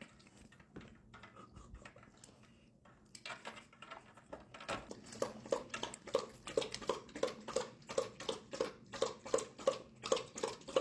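A dog lapping water from a bowl with ice cubes in it, a quick, even run of wet laps about three to four a second. The laps start about three seconds in and get louder after that.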